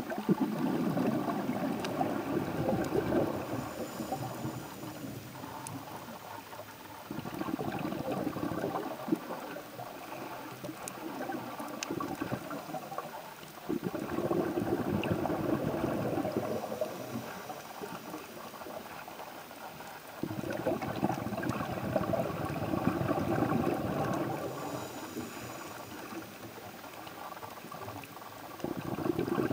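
Underwater bubbling rumble from a scuba diver's exhaled breath. It comes in surges about every six to seven seconds, each lasting three or four seconds before fading.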